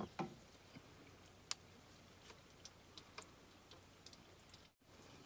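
Faint, scattered light clicks from small metal hand tools and a screw being handled, with one sharper click about a second and a half in.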